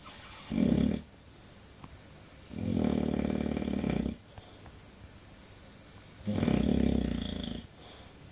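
English bulldog snoring: three loud, raspy snores about three seconds apart, each lasting one to one and a half seconds, with a high whistle riding over them.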